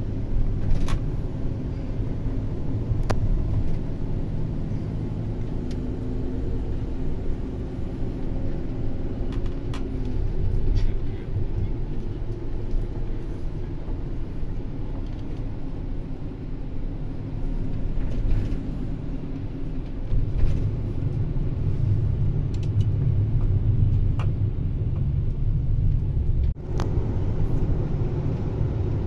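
Road traffic heard from a vehicle moving along with it: a steady low rumble of engines and tyres, with a brief dropout near the end.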